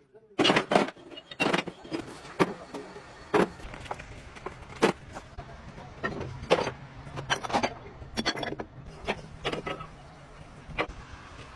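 Irregular metal clanks and knocks from workshop work on a truck wheel hub, over a steady machine hum.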